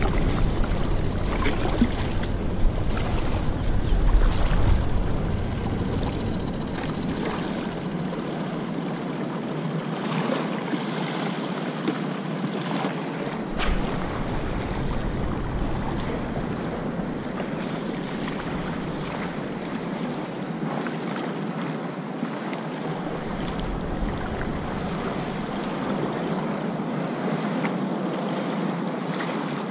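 Wind on the microphone with small waves lapping at a sandy shoreline; the low wind rumble comes and goes in gusts.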